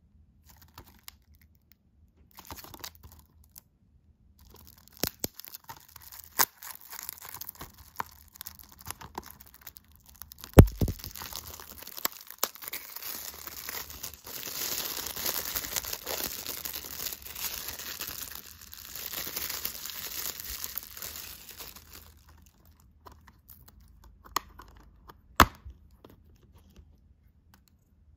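Clear plastic shrink wrap being picked at, torn and peeled off a plastic Blu-ray case. It crinkles steadily for about ten seconds, after a single sharp snap about ten seconds in. Near the end come a few plastic clicks from the case being handled and opened.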